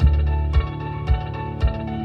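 Background music: sustained melody notes and a bass line over a steady beat, a little under two beats a second.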